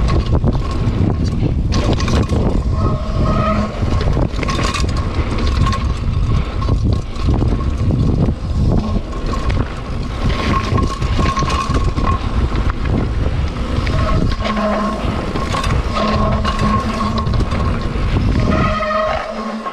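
Mountain bike riding fast down a rough dirt forest trail: a continuous rumble and rattle of the bike over the ground with wind buffeting the GoPro microphone. A steady high whine runs through it, with lower tones joining it now and then.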